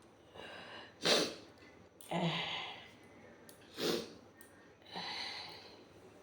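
A person yawning with loud, noisy breaths. Twice, a short sharp intake of breath is followed by a drawn-out breathy exhale, the first with a brief voiced sigh in it.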